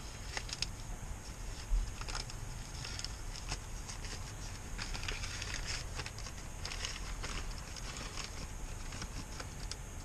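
Paper crinkling and rustling with scattered small clicks, as folded notes are handled and opened.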